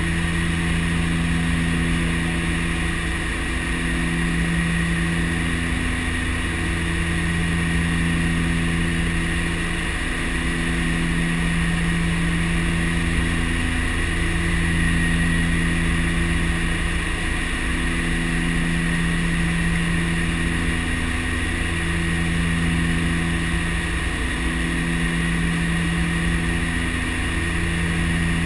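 Twin Otter's two PT6A turboprop engines and propellers running steadily in cruise-descent, heard inside the cockpit: a deep drone with a slow, even throb every two seconds or so, and a steady high turbine whine above it.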